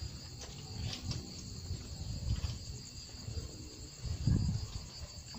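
Crickets chirping steadily in the night, a constant high-pitched trill, over low rustling and thumps from the person walking with the camera, with one louder thump about four seconds in.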